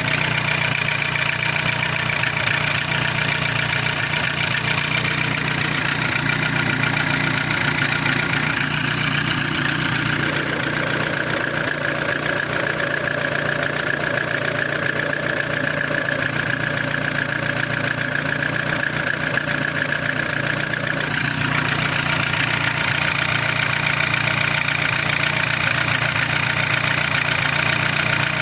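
VAZ 11186 eight-valve engine idling with a knock whose cause is not known. Its note changes for about ten seconds in the middle, then returns.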